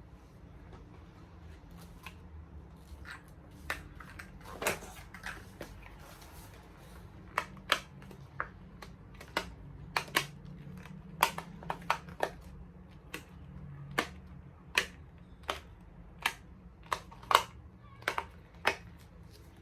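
Bubbles of a large silicone pop-it fidget toy being pressed, each pop a short sharp click. The pops come irregularly: a few at first, then about one or two a second from about seven seconds in.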